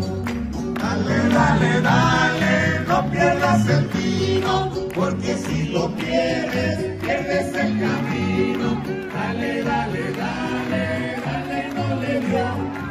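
Festive music with a group of voices singing together over instrumental accompaniment.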